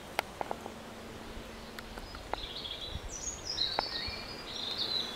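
Small birds singing in short, high chirpy phrases, starting about a second and a half in, over a faint outdoor background with a few small clicks.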